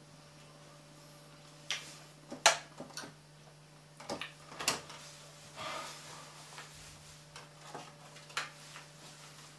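Wet mouth noises from chewing a mouthful of doughnut: a scattered series of lip smacks and tongue clicks, the loudest about two and a half seconds in, over a faint steady hum.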